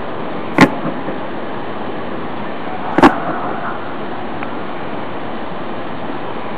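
Two sharp, loud bangs from fireworks going off, about two and a half seconds apart, over steady background noise.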